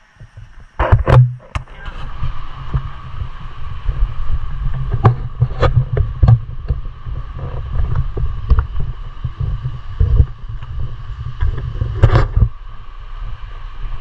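Low, uneven rumble of wind and handling on a walking camera's microphone, with scattered knocks and footsteps. The loudest knocks come about a second in and again near the end.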